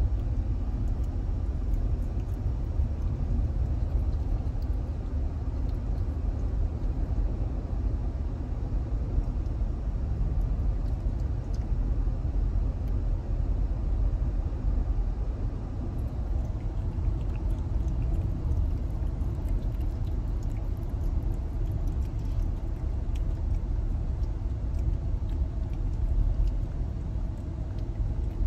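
Steady low rumble of a moving car heard from inside the cabin, with wind buffeting in through an open side window.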